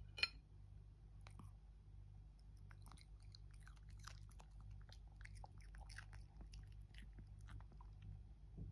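Pomeranian chewing a piece of cucumber: faint, irregular crunches and mouth clicks, with one louder click just after the start, over a steady low hum.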